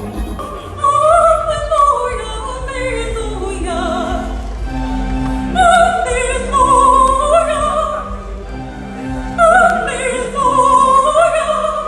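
Gospel chorale singing long, sustained melodic phrases over held lower notes. Louder phrases start about one second, five and a half seconds and nine and a half seconds in.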